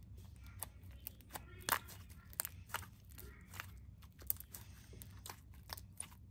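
Glossy slime being squeezed and stretched by hand, giving off irregular small clicking pops and squelches.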